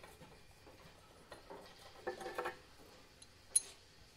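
Light metallic clinks from loose metal hardware being handled on the chipper shredder: a short ringing jingle about two seconds in and a single sharp click near the end.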